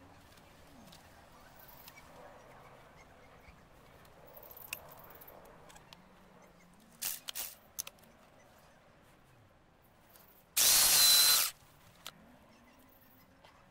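Electric drill boring into garden soil, running in one loud burst of about a second near the end. Before that there is only faint background with a few light clicks.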